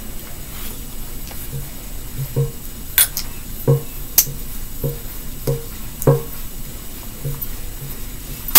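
Thick cornstarch-and-conditioner dough being stirred in a small metal bowl: the utensil squelches through the mix and knocks against the bowl in a regular run of soft thuds, one or two a second, with a few sharper clicks.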